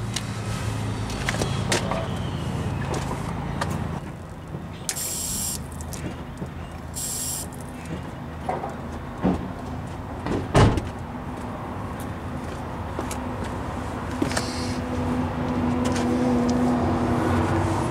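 Steady outdoor background hum with a vehicle running or passing near the end. A single sharp knock comes about ten and a half seconds in, and two short bursts of hiss about five and seven seconds in.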